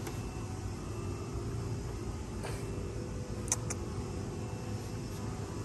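Steady low hum of workshop background noise, with a few light clicks and one sharper click about three and a half seconds in.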